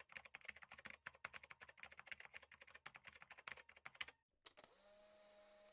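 Faint, rapid computer-keyboard typing clicks that stop about four seconds in. Just after, a steady mechanical whir with a low hum sets in.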